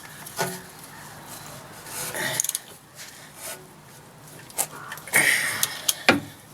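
Scattered metallic clicks, taps and scraping from hand work on a rear brake caliper as its mounting bolts are threaded in and the tools are handled, with a short clatter about five to six seconds in.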